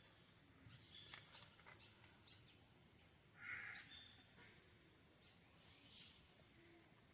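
Faint birds chirping in the background, a few short calls in the first couple of seconds and again about six seconds in, with a harsher call about three and a half seconds in.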